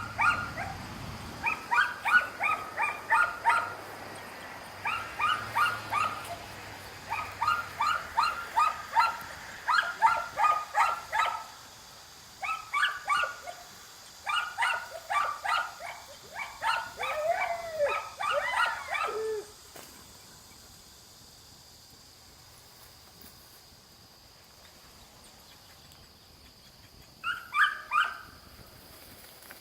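Dog barking in rapid runs of short, yipping barks, several bursts in a row, with a bent, whining call near the middle. The barking stops about two-thirds through and comes back in one short burst near the end.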